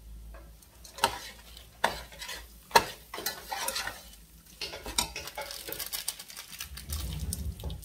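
A long metal spatula stirring and scraping rice in a large aluminium pot, with a few sharp clanks of the spatula against the pot. The rice sizzles faintly as it is fried for biryani.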